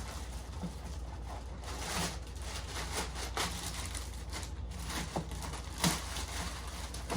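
Scattered rustles and light knocks from handling an animatronic clown's latex-and-plastic head and its packaging, over a steady low hum.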